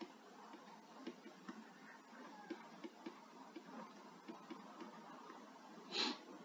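Faint, irregular clicks and taps of a stylus writing on a graphics tablet, a few a second. About six seconds in there is one short, louder rustling sound.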